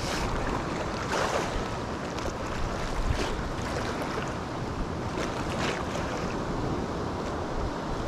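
Storm wind gusting across the microphone over breaking surf: a steady, heavy rushing noise with a few faint clicks.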